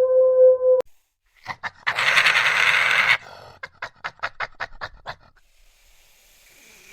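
A wolf's howl, held on one steady pitch, cuts off abruptly under a second in. After a short gap an animal gives a rough breathy burst, then a string of quick panting huffs, about three a second, that die away.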